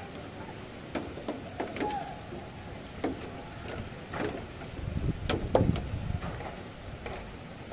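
Thunderstorm ambience: steady rain and wind noise with scattered sharp knocks and clicks, and a louder low rumble, like a gust on the microphone, about five seconds in.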